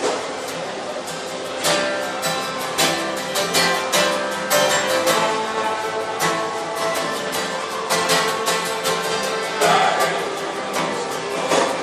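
Acoustic folk band playing live: strummed guitar with steady strokes over held notes from other instruments.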